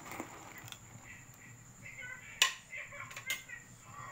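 Ladle knocking against an aluminium soup pot and the clam shells inside while stirring: a few sharp clinks, the loudest about two and a half seconds in.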